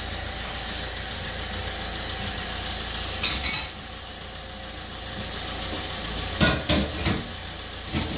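Food frying on a gas stove with a steady sizzle, and dishes and utensils clattering a few times, about three seconds in and again around six and a half seconds.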